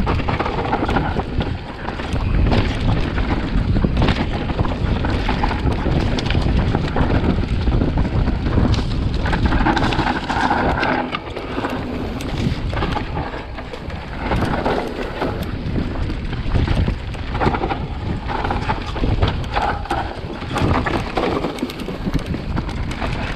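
Vitus Sommet CRX mountain bike descending a rough dirt trail, heard from an action camera riding on the bike or rider: wind buffeting the microphone and tyres rumbling over dirt, with frequent clattering knocks from the bike over bumps.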